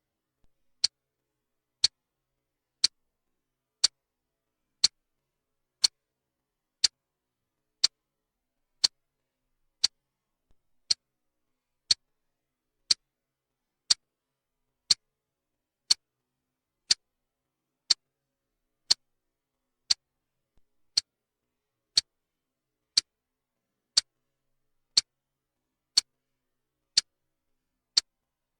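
Clock-style ticking, one sharp tick about every second in an even rhythm, with silence between the ticks.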